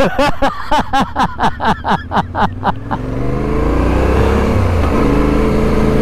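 A voice in a quick run of short, evenly spaced bursts, then the Yamaha Ténéré 700's parallel-twin engine pulling away: its pitch rises for about a second and a half and then holds steady.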